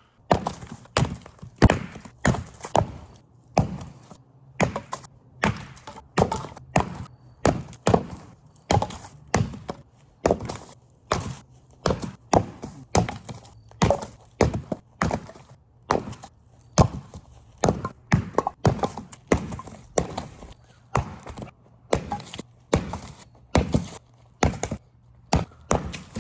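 Firewood being split by hand: an axe-type tool strikes the logs with sharp wooden thunks, about once a second, some blows followed closely by a second knock.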